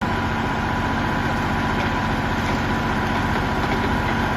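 Engine of a truck-mounted wood chipper running steadily, with a fast even pulse and a constant hum.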